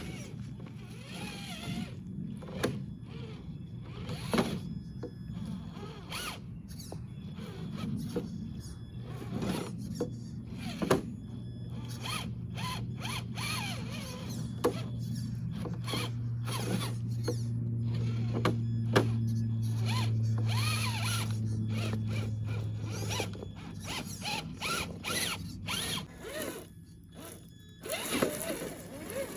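Traxxas TRX-4 RC rock crawler's motor and geared drivetrain whirring as it crawls, with scattered clicks and knocks throughout. The whir is strongest in the middle and drops away near the end.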